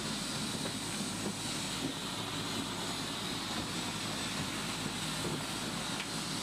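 CH-47 Chinook helicopter's turbine engines running, a steady even rush of noise.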